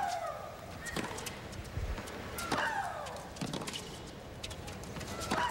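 Tennis rally on a hard court: racket strikes on the ball about every second or so. Three of the strokes, at the start, midway and near the end, come with a player's loud shriek that falls in pitch.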